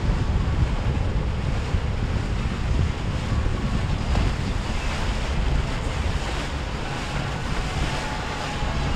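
Wind buffeting the microphone over the steady wash of ocean waves and surf. A faint motor whine from a passing boat comes in near the end.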